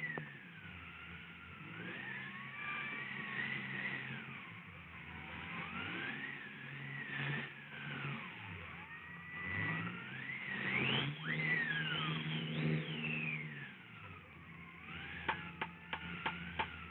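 Cartoon storm-wind sound effect: whistling glides that rise and fall again and again, over low held musical notes. A quick run of sharp clicks comes near the end.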